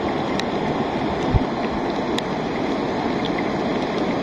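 Muddy rain-fed lahar flood torrent rushing steadily down a volcanic river channel. A single dull low thump about a second and a half in, and a few faint ticks.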